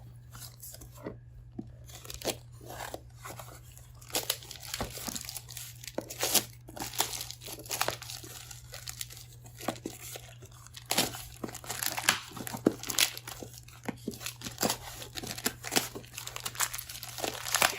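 Packaging being opened by hand: irregular tearing, rustling and crinkling, sparse at first and busier from about four seconds in, over a faint steady low hum.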